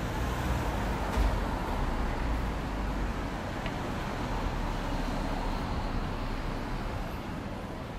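Street traffic noise with a vehicle going by. A low rumble builds about a second in and eases off near the end.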